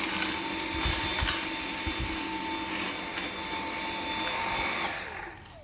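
Dyson V7 cordless stick vacuum with motorhead running steadily with a whine, with a few knocks about one and two seconds in as spilled rabbit litter is sucked up. Near the end the motor is switched off and winds down in falling pitch.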